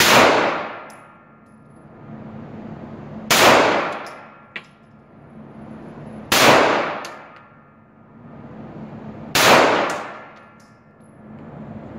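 Semi-automatic pistol fired four times at a slow, even pace, about three seconds apart, each shot followed by a long echo in the enclosed indoor range.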